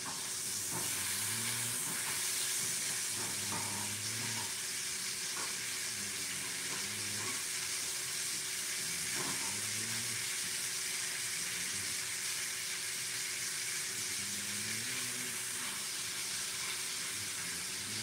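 Food sizzling in a frying pan on a gas stove, a steady frying hiss, with a few light taps of a utensil against the pan.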